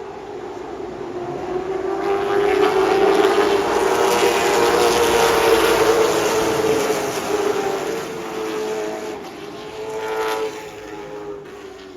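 Late model stock car's V8 engine at racing speed, climbing in pitch and loudness down a straightaway, then easing off as it lifts for a turn and picking up again briefly.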